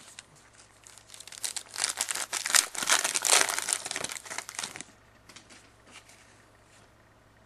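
Hockey card pack wrapper torn open and crinkled by hand: a dense crackling from about a second in to nearly five seconds, then a few faint rustles.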